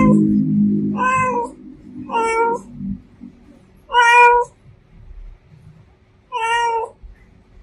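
Domestic cat meowing repeatedly: five short meows about a second apart, with a longer pause before the last one, the fourth the loudest.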